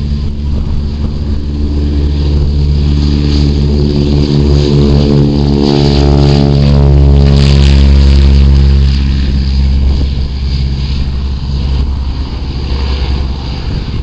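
Piston aircraft engine running close by, its note growing louder to a peak a little past the middle, then dropping off.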